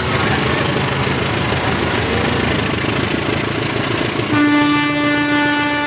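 CC 203 diesel-electric locomotive's engine running hard as it pulls a passenger train past at close range, in the smoky 'kobong' condition that the uploader takes as a sign that the locomotive is not healthy. A steady horn blast starts about two-thirds of the way in and is still sounding at the end.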